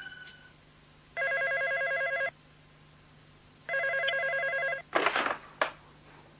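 Electronic telephone ringing twice, each ring a warbling trill about a second long, followed near the end by a short clatter as the receiver is picked up.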